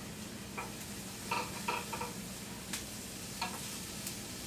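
Celery and onions sautéing in a skillet on a gas range: a soft, steady sizzle with a few short scrapes and taps of the utensil against the pan as they are stirred, the celery still a little crunchy.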